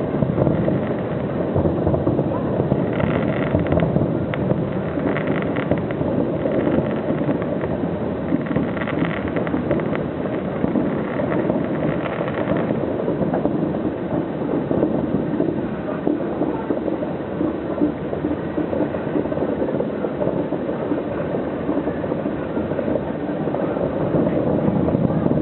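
Distant fireworks display: a continuous low rumble of many overlapping bursts, with a finer crackle above it for the first half.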